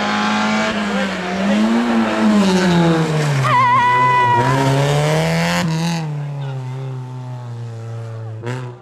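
Rally car engine revving and easing off through the gears as it takes tight bends, its pitch rising and falling. A short high tire squeal comes about three and a half seconds in, and the engine sound fades toward the end.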